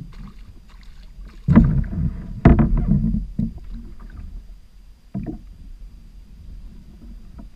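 A small hooked sea trout splashing at the side of a plastic kayak and knocking against its hull, with two loud splashes about a second apart near the start and a smaller one about five seconds in.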